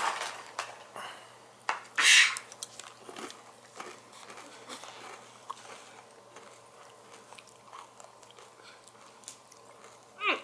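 Plastic Play-Doh tub being worked at to get its stiff lid off: scattered plastic clicks and crackles, with a louder crackling rush about two seconds in. A short voice-like sound comes near the end.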